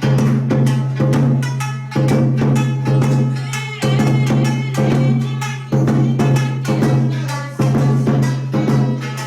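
Lively Tokunoshima folk dance song with a heavy drum beat about once a second and a melody over it.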